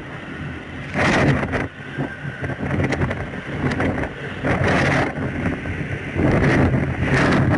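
Cyclone-force wind gusting and buffeting the microphone in heavy rain, in loud rushing surges: about a second in, around three seconds, around five seconds, and a long one from six to seven and a half seconds.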